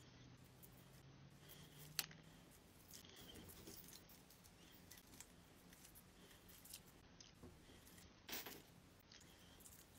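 Faint, scattered clicks and light crackling from fingertips picking and tugging at the edge of a glued-on rhinestone-studded face mask, with a sharper click about two seconds in and a brief crackle near the end. Otherwise near silence.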